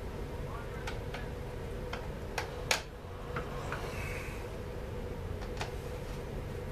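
Scattered sharp clicks and light knocks of parts being handled on a Stihl MS 250 chainsaw during reassembly, the loudest about two and a half seconds in, over a steady low hum.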